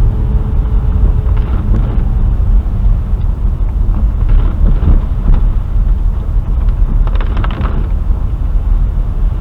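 Car driving along a wet dirt road, heard from inside the cabin: a steady low rumble of engine and tyres.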